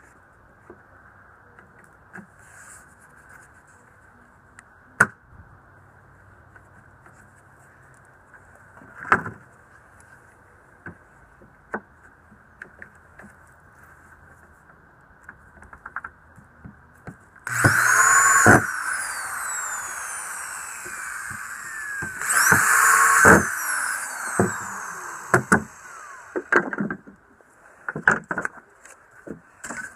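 Corded electric drill running for about six seconds, drilling into the wooden jig, its pitch gliding as the motor speeds up and slows under load. Before and after it, scattered knocks of clamps and wood being handled on the bench.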